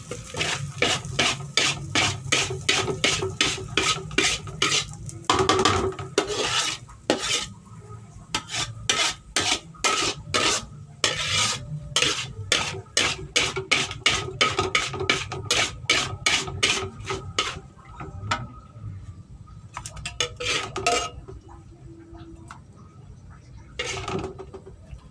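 Metal spatula scraping and knocking against a metal wok as cooked fried noodles are tossed, two or three strokes a second. The strokes stop after about seventeen seconds, with only a few more near the end.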